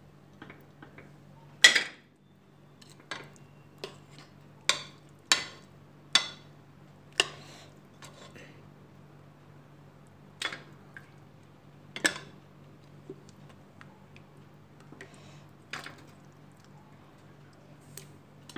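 Perforated ladle knocking and clinking against the side of a metal cooking pot as boiled chicken pieces are lifted out of the broth. A sharp knock comes about two seconds in, then a run of irregular clinks, over a steady low hum.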